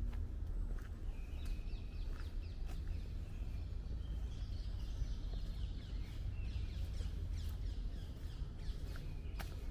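Small birds chirping and calling repeatedly in short, quick notes over a steady low rumble.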